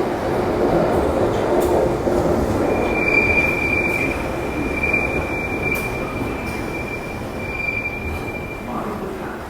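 London Underground train pulling into the platform: a loud rumble of wheels on the rails, with a steady high-pitched wheel squeal for most of the time that fades out near the end.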